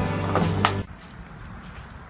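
Music with a steady bass line and drum hits that cuts off abruptly a little under a second in, leaving low room noise.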